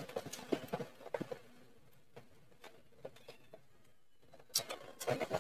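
A person eating spicy octopus: chewing with short, sharp clicks. There is a quiet stretch in the middle, and the clicks and chewing return near the end.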